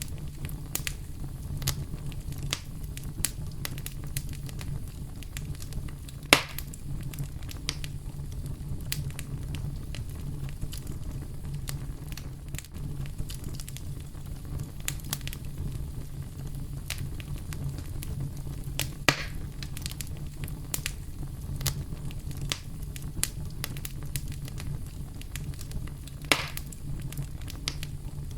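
Campfire crackling, with many small pops and three louder snaps, over a steady low rumble of brown noise.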